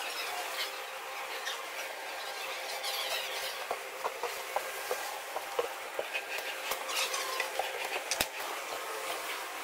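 Scattered light clicks and knocks as kitchen cabinet doors and a utensil drawer are handled, with a sharper knock near the end, over a steady hiss of room noise.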